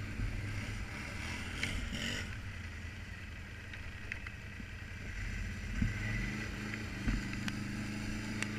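ATV engine running as it rolls over a rocky dirt trail, with a couple of sharp knocks past the halfway point.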